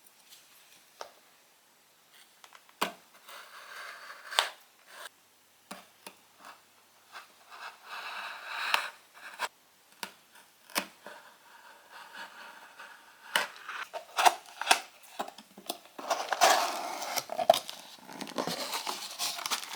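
A parcel being opened by hand to unpack a replacement phone display: scattered scrapes, scratches and sharp clicks of packaging being cut, torn and handled, becoming a denser rustle near the end.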